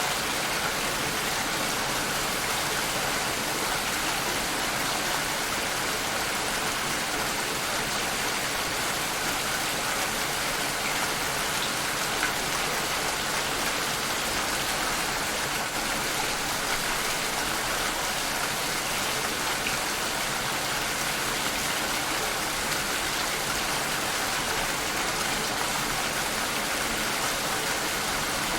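Steady rainfall, an even hiss of many drops falling on surfaces, unchanging throughout.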